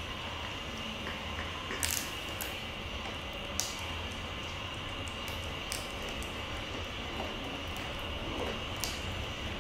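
Pomeranian puppy chewing a rabbit ear treat: a handful of sharp, irregular crunches over a steady background hum.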